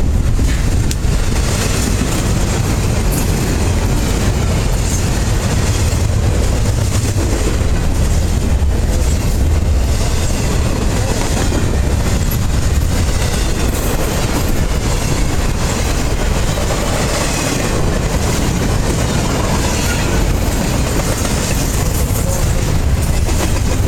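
Intermodal freight train's cars rolling past close by: a steady, loud rumble and rattle of steel wheels running on the rails.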